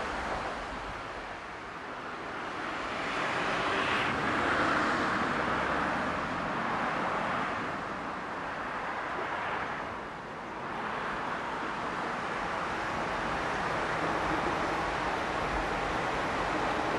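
Steady rushing of a river over shallow rapids, with road traffic passing close by; a car swells past about four seconds in.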